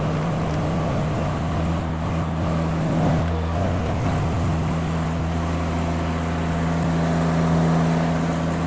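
Mini skid steer's engine running steadily at a constant speed while the loader works.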